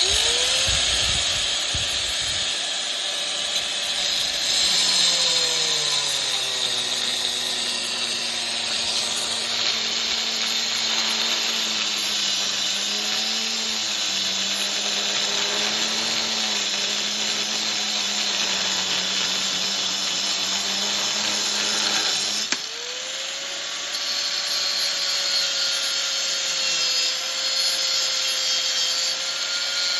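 High-speed rotary grinder with a grinding bit, whining as it spins up, then dropping steadily in pitch as the bit bears down and cuts under load. About 22 seconds in the load comes off and the whine jumps back up to free-running speed.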